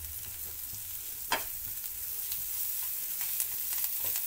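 A tadka of onion, tomato and spices with fresh coriander leaves sizzling steadily in a nonstick frying pan as a silicone spatula stirs it, with one sharp tap about a second in.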